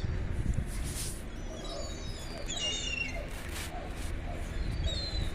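Gulls giving several mewing calls, the clearest a little past halfway, over a steady low rumble.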